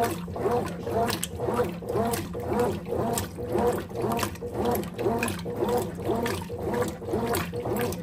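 Consul Maxi Economia 13 kg (CWE13) top-loading washing machine agitating in water: the agitator swings back and forth about twice a second, and the motor's hum rises and falls with each stroke over the slosh of the water.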